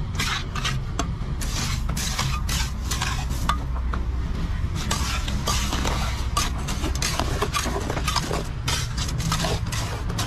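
Small metal hand trowel scraping and scooping wet concrete mix: a run of irregular gritty scrapes and light clinks, over a steady low hum.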